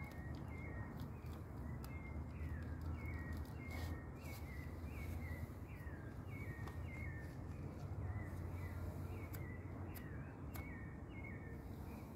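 An animal calling over and over outdoors at night: short chirps that slide downward in pitch, two to three a second, over a low steady hum.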